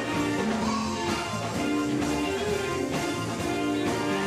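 Live gospel band music with a steady beat and sustained low bass notes that change about every second.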